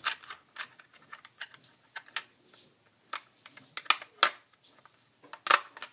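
Light, irregular plastic clicks and taps from a fork, spoon and chopsticks being handled in a plastic cutlery case, with a few sharper clicks in the second half.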